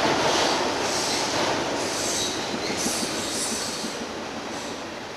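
Freight train rolling past with its wheels squealing against the rails, the rumble steadily fading as it moves away.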